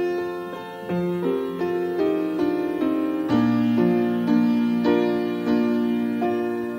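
Soft keyboard music with no singing: a piano playing a gentle run of chords and single notes, each ringing on. A low bass note joins about halfway.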